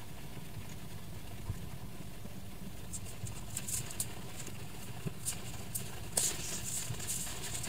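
Faint rustling and light clicks of yarn being pulled through crocheted stitches with a crochet hook to weave in the tail. It starts about three seconds in and is busiest near the end, over a steady low hum.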